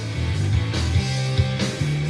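Instrumental rock-style music with guitar and a strong, stepping bass line, played through an Edifier S1000MKII bookshelf speaker pair as a sound test. The music comes in louder right at the start.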